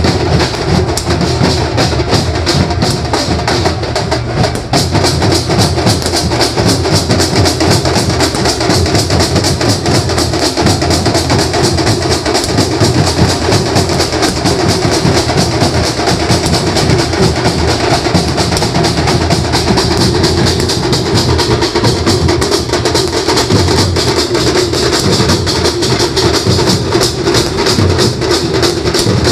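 Maharashtrian banjo party playing loud amplified procession music: a banjo melody over fast, dense drumming that runs without a break.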